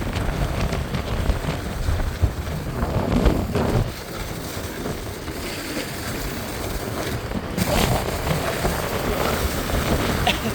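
Wind buffeting the microphone in a rough, uneven rush, heaviest in the low end, as the snowboarder rides downhill.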